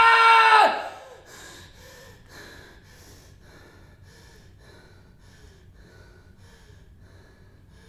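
The tail of a woman's loud shout, falling in pitch and cutting off about a second in, then rhythmic heavy panting, about two breaths a second, some with a slight voiced catch.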